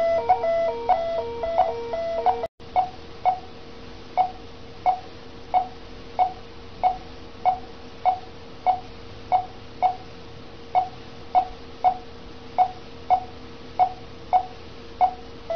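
Bedside patient monitor beeping in time with the pulse: short tones about one and a half times a second over a steady low hum. For the first couple of seconds a faster, busier run of overlapping alarm beeps sounds before a brief cut.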